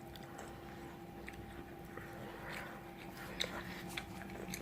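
Close-miked chewing of crunchy fried food, with scattered crisp crunches and clicks; the sharpest comes about three and a half seconds in.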